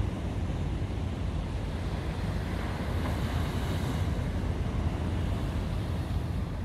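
Sea surf breaking and washing up a sandy beach, swelling about halfway through, with wind rumbling on the microphone.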